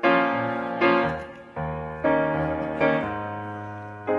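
Background music on piano: chords struck about once a second, each ringing and fading before the next.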